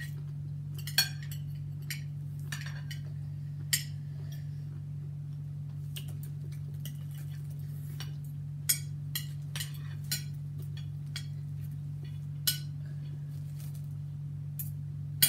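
Forks and cutlery clinking and tapping against plates and food containers in a few scattered sharp taps, over a steady low hum.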